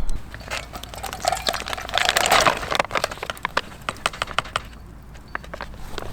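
Firewood cracking and snapping in a string of sharp clicks, with a denser crackling burst about two seconds in.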